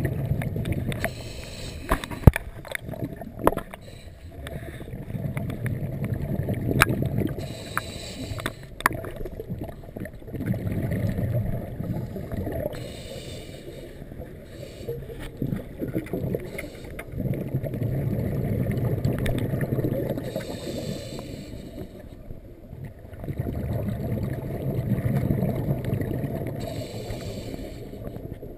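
Scuba diver breathing through a regulator underwater, in a slow cycle about every six seconds: a short hiss on each inhale alternates with a longer gurgle of exhaled bubbles. A few sharp clicks come in the first nine seconds.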